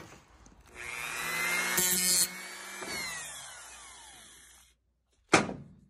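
Small power tool, a high-speed rotary cutter, spinning up and cutting into an old stuck flat-head machine screw on a 1950s Dixie range, with a harsher burst of cutting after about a second. It then winds down with a falling whine, and a single sharp click follows near the end.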